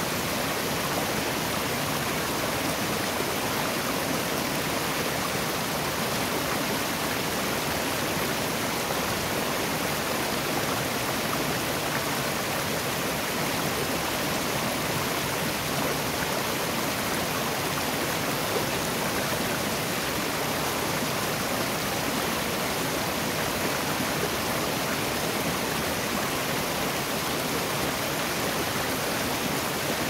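Small waterfall and the stream below it rushing over rocks, a steady, even wash of water noise.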